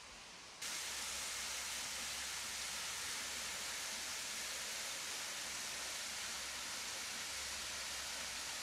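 A small waterfall running low, only a trickle, spilling over a rock ledge: a steady hiss of falling water that cuts in suddenly about half a second in.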